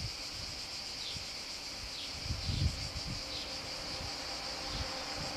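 Steady high-pitched drone of summer insects, with irregular low rumbles underneath.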